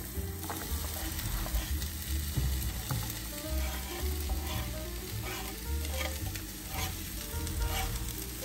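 Finely diced onion sizzling steadily in hot cooking oil in a frying pan as it starts to sauté, with a few short scraping strokes from being stirred in the second half.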